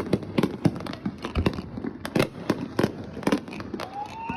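Fireworks going off: a rapid, irregular run of bangs and crackles, several a second.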